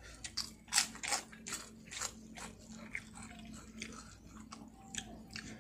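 Close-up crunching and chewing of kerupuk, Indonesian fried crackers, bitten into repeatedly: a dozen or so short, sharp crunches at an uneven pace.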